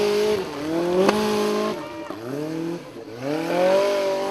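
Formula Offroad buggy's engine revving hard in repeated surges as the buggy climbs a steep dirt hill under full load. The revs climb, fall away and climb again several times. There is a sharp bang about a second in.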